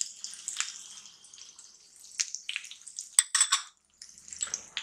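Whole spices and chilli powder frying in hot oil in a pan, a light sizzle with scattered crackles and pops. The sizzle fades a little over the first two seconds, then a cluster of sharper pops comes between about two and four seconds.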